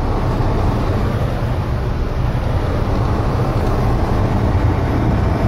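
Car engine hum and road noise heard from inside the cabin, steady, as the car drives along a snow-covered road.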